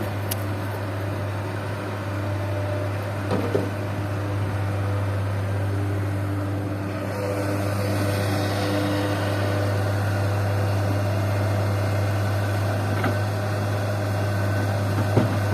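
Heavy diesel engine idling, a steady low hum that holds even throughout, with a couple of faint knocks.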